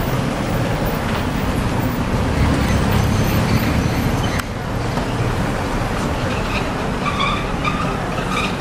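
Street traffic: cars running and passing, with a steady rumble and the voices of passers-by. The sound shifts abruptly a little over four seconds in.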